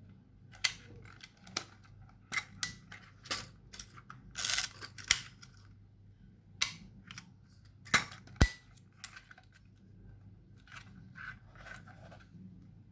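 A vintage film camera being handled, its mechanism giving a run of sharp, irregular clicks and snaps for the first nine seconds or so, then softer rattling near the end.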